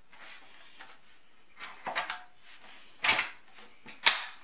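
The metal arm tube of a toilet seat riser being pushed into the plastic riser's socket: a few short clicks and knocks, a small cluster about two seconds in and sharper single ones about three and four seconds in.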